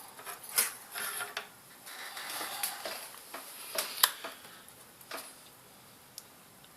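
Light clicks and clatter of small hard parts being handled on a work surface, with a few sharper knocks, fading off toward the end.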